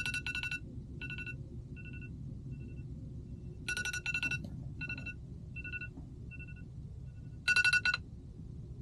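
Smartphone alarm going off: three bursts of rapid electronic beeps, each followed by single beeps that grow fainter, over a steady low hum.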